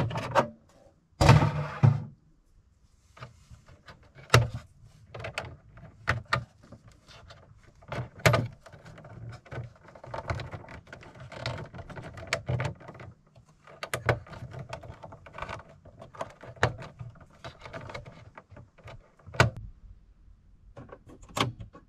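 Hands working on an EcoFlow smart distribution panel: irregular plastic clicks, snaps and knocks as wires are pulled out and pushed into lever-clamp terminal blocks. There is a louder clatter of handling about a second in, and sharp clicks near the middle and near the end.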